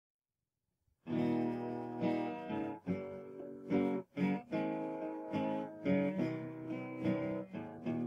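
Intro music of strummed guitar chords, starting about a second in.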